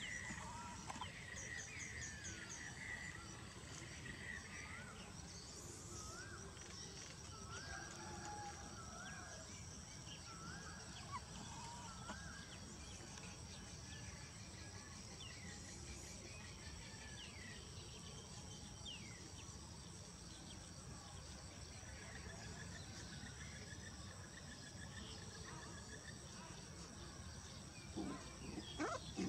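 Faint outdoor ambience: a steady high insect drone, with scattered short high chirps through the first half and a few louder short sounds near the end.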